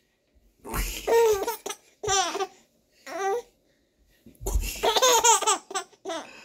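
Baby laughing in about five high-pitched bouts with short silent gaps between them, the longest about four and a half seconds in.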